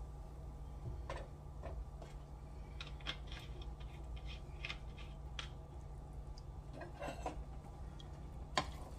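Coca-Cola gravy simmering in a skillet: scattered small pops and crackles over a steady low hum, with one sharper click near the end.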